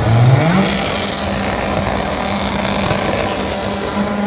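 A drag car's engine revs up about half a second in and is then held at high, steady revs, with a haze of noise over it. The pitch rises slightly again near the end.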